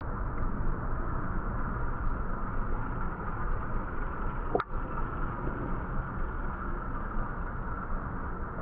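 Steady rushing noise with a heavy low rumble, typical of wind buffeting a handheld camera's microphone. A single sharp click comes about four and a half seconds in.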